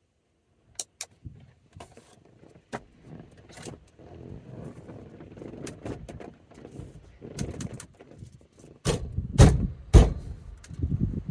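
Scattered clicks, rattles and knocks of parts and tools being handled while fitting pieces back onto a truck's steering column, with several heavy thumps about nine to ten seconds in.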